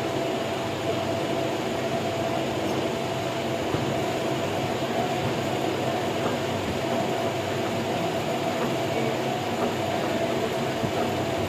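Steady machine running noise with a constant mid-pitched tone held over it.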